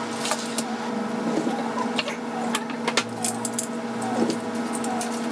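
Scattered small clicks and taps of the plastic case of an infrared thermometer as it is turned and worked by hand, with a cluster of clicks about two to three seconds in, over a steady background hum.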